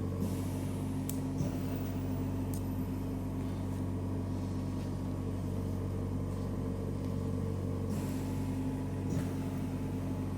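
Steady low hum from equipment running in the operating room, with a few faint clicks.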